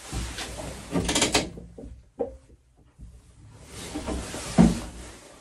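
A few clunks and scrapes of hard parts being handled and fitted, with a sharp click about two seconds in.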